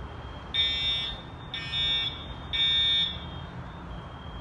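Fire alarm horns sounding in three half-second blasts about a second apart. A longer pause follows, and the next set begins near the end: the temporal-three evacuation signal.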